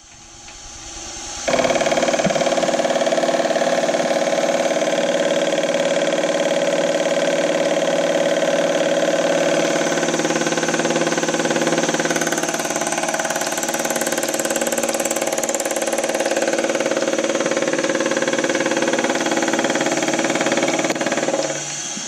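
Milling machine spindle running with a half-inch end mill cutting into an aluminum block: a loud, steady machining sound with a mix of held tones. It builds over the first second and a half, jumps up sharply as the cut takes hold, then holds steady and drops off near the end.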